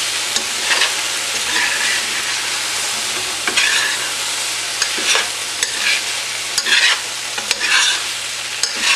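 Eggplant and potato pieces sizzling in oil in a stainless steel pan while being stirred with a spoon: a steady hiss broken by irregular scrapes of the spoon against the pan, about one a second.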